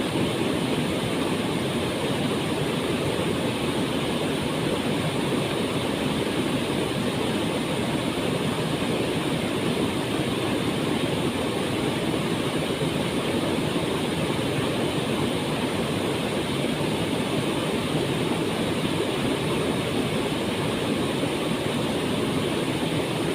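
Waterfall's water falling and splashing in a steady, unbroken rush.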